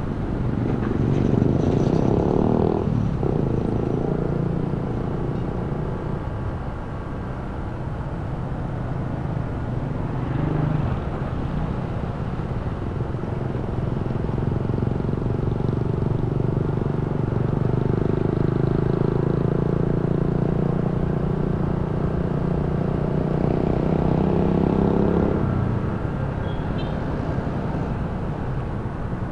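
Honda ADV 160 scooter's single-cylinder engine running under way, with road noise underneath; the engine note rises and eases with the throttle and drops off sharply near the end.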